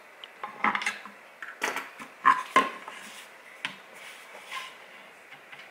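Metal pliers clicking and knocking inside an empty plastic bottle while it is handled, as a bolt-in valve stem is fitted through its wall: a run of irregular clicks and knocks, the two sharpest close together about two and a half seconds in.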